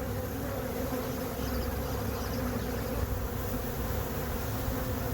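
A swarm of honey bees buzzing in a steady, dense hum as they settle into a nuc box. The beekeeper takes this as a sign that the queen is inside.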